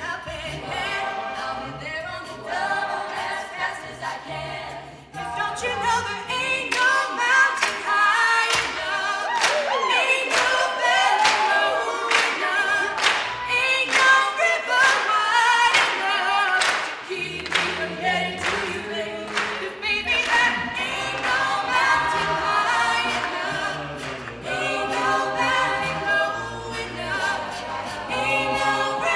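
Mixed a cappella group singing, women's lead voices over the group's backing harmonies. Through the middle a sharp, regular beat runs under the voices, then drops out.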